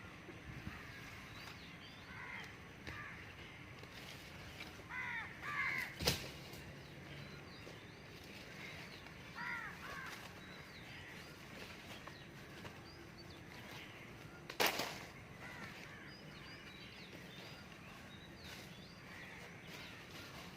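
Crows cawing in several short runs of harsh calls over faint chirping of small birds. Two sharp knocks come about six seconds in and near fifteen seconds, and they are the loudest sounds.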